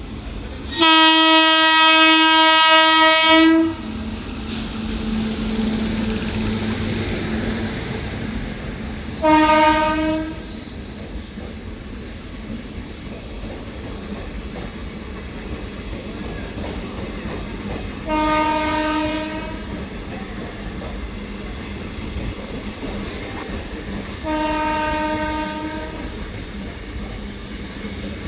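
WAG 9 electric locomotive's horn sounding four times: one long blast of about three seconds, then three shorter blasts spread through the rest. Between the blasts the passing train rumbles and its wheels clatter over the rail joints.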